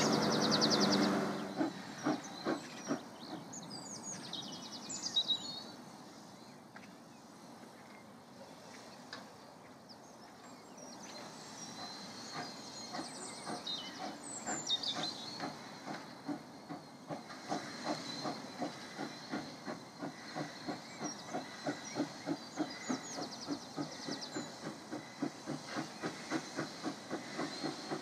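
Hudswell Clarke 0-6-0 saddle-tank steam locomotive starting a train. A whistle note ends about a second in, then the exhaust chuffs over a steady hiss of steam, the beats quickening from under two a second to two or three a second as it gathers speed. Birds chirp throughout.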